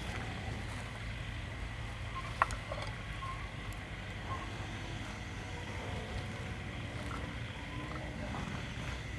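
A low steady rumble, with a few light clicks and rustles as fresh vegetable greens are handled and dropped into a clay hotpot of steaming broth; one sharper click comes about two and a half seconds in.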